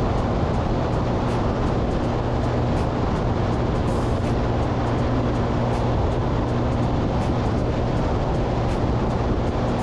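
A vehicle driving steadily at speed: continuous road and wind noise with a steady low engine hum, unchanging throughout.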